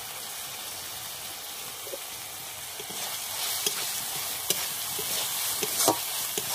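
Chopped onions with garlic and ginger paste sizzling in hot oil in a wok while a spatula stirs and scrapes them. The frying hiss grows louder about halfway through, with several sharp clicks, the strongest near the end.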